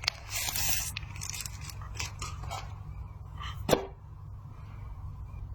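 A smartphone box and its packaging being handled, rustling and crinkling for the first few seconds, with one sharp click about two-thirds in, over a steady low hum.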